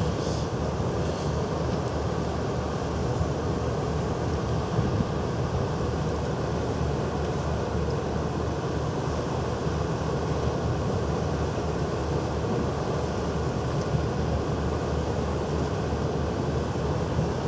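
Steady low rumble of the Michigan paddlewheel cruise boat under way, heard from its open deck.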